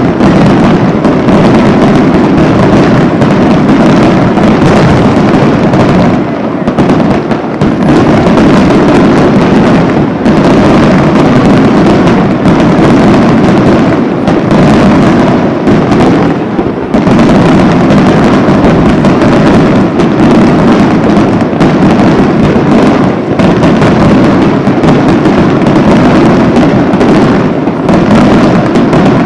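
Aerial fireworks display: a dense, continuous barrage of shells bursting in rapid succession, the loud bangs running together into one near-constant rumble with only brief lulls.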